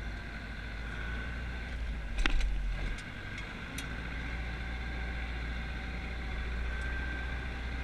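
Zetor tractor engine running steadily, heard from inside the cab, with one loud clunk about two seconds in.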